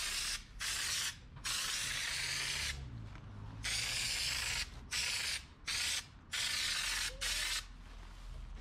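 Compressed-air spray gun spraying black U-POL Raptor liner: a string of hissing blasts, each half a second to a second and a half long, with short breaks as the trigger is released and pulled again.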